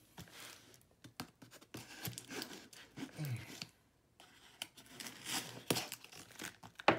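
Butter knife slitting and tearing the packing tape along the seam of a cardboard box: irregular scraping, tearing and rustling strokes, with a short pause about four seconds in.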